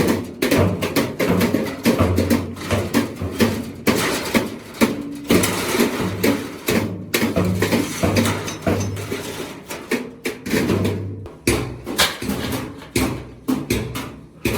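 Repeated hammer blows on sheet steel, sharp clanging strikes several times a second at an uneven rhythm.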